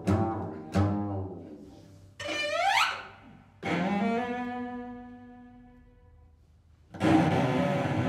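Solo cello in a contemporary string-quartet piece: a couple of sharp notes that ring and die away, a quick upward slide, then a held note that fades out. About seven seconds in, the full string quartet comes in together, loud and dense.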